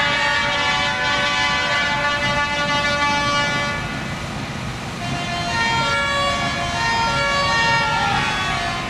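Truck air horns blowing long, overlapping chords that shift pitch every second or two, over a steady low rumble.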